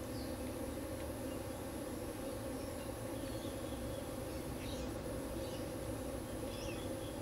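Steady outdoor background noise with a constant low hum, and a few faint high chirps about two-thirds of the way through and again near the end.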